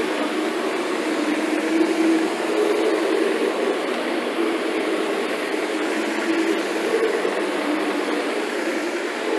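Carpet-cleaning vacuum suction running steadily: an even rushing noise with a hum that wavers slightly in pitch.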